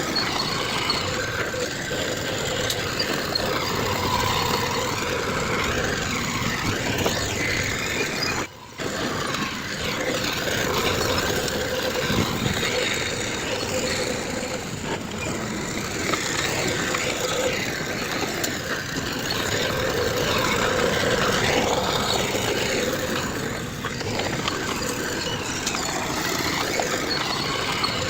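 Heavy earthmoving machinery running steadily under load, a dense diesel engine noise with a brief break about eight seconds in.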